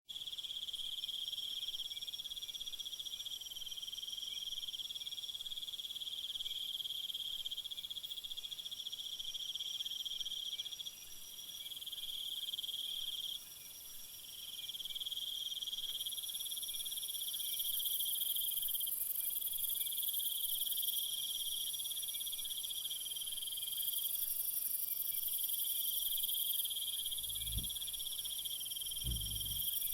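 Night insect chorus of crickets trilling steadily in several overlapping high-pitched layers, a higher shrill layer growing louder about halfway through. Two brief low sounds come near the end.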